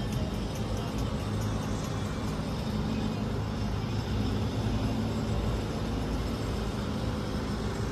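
Steady outdoor street ambience with a low, even rumble of motor vehicles.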